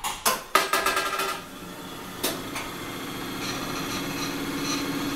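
Intro sound effect: a quick run of sharp strikes with short ringing tones, another knock about two seconds in, then a steady mechanical hum.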